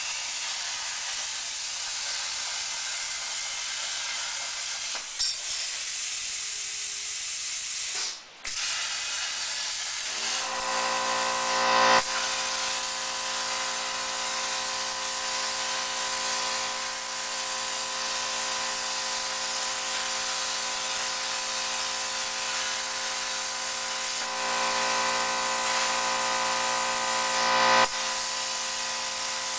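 CNC plasma cutter torch cutting steel plate: the plasma arc gives a steady, loud hiss. The hiss drops out for a moment about eight seconds in. From about ten seconds a steady machine whine of several tones runs under it, swelling twice and cutting off sharply each time.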